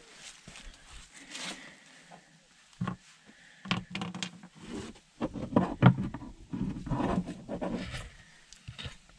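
Footsteps on dry leaves at first, then knocks, clicks and scraping of a plastic floor panel and its push-rivet fasteners being pried and handled, loudest and most continuous in the second half.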